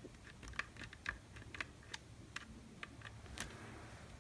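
Faint, irregular plastic clicks and taps from a Hakko FX-951 soldering station's yellow front panel and circuit board being worked back into its blue plastic case.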